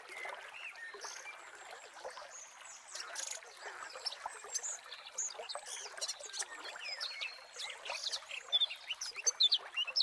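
Birds chirping and calling over a steady hiss of trickling water, the chirps coming thicker and louder near the end.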